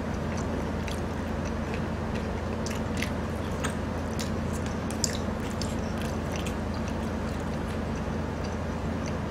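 Close-miked chewing and mouth sounds of people eating, with scattered small clicks and smacks over a steady low hum.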